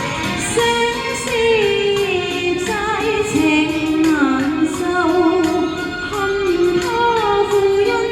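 A woman singing a slow, gliding melody with vibrato over backing music.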